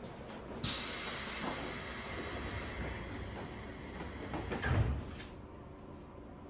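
Pneumatic doors of a JR West 201 series electric train closing at a station: a sudden burst of air hiss, then a heavy thud as the doors shut, before departure.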